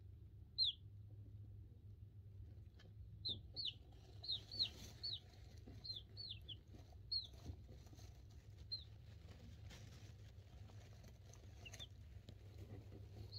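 Two-week-old chicks peeping: short, high cheeps that fall in pitch, one early, then a quick run of them about three seconds in, and a few scattered ones later.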